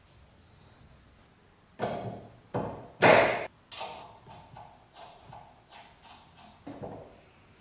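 Steel shaft and stainless steel grater cone of an antique rotary vegetable grater clinking and scraping together as the cone is fitted onto the shaft. A few sharp metallic clinks come two to three seconds in, the loudest ringing briefly, followed by lighter clicks and taps.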